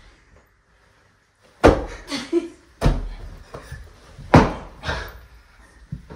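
Heavy thuds of stiff foam sofa cushions striking people and furniture, starting about a second and a half in: three loud blows roughly a second and a half apart, with lighter hits between.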